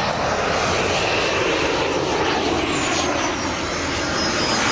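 Radio-controlled model jet's kerosene-burning turbine engine running at speed in a low pass, a rushing noise with a high whine that slides steadily down in pitch as the jet goes by.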